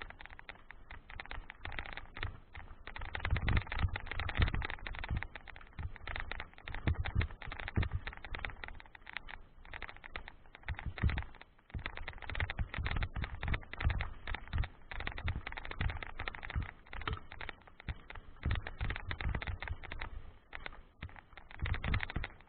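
Mountain bike rolling fast down a loose gravel track: the tyres crunch and crackle on the stones without pause, and the bike rattles over bumps with dull low thumps.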